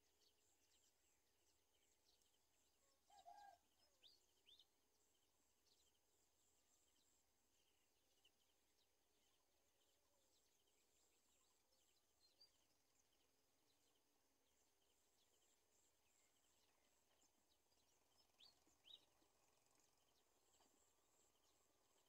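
Near silence over faint steady hiss, broken by a few faint, thin, high peeps from garden sunbird nestlings begging in the nest, in two short clusters about three seconds in and near the end.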